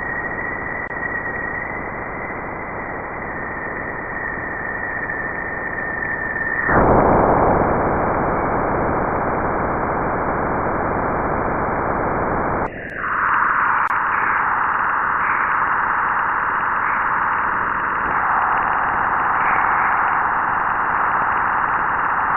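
Space recording turned into sound: a dense, static-like hiss. For about the first seven seconds a steady high tone runs over it. It then changes abruptly to a louder, even hiss, and about halfway through switches to a hiss gathered higher up that swells and wavers.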